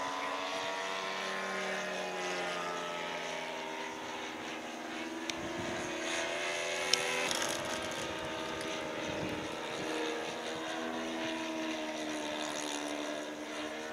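RC model airplane's motor and propeller droning in flight, the pitch drifting slowly up and down as it passes and throttles. A sharp tick about seven seconds in.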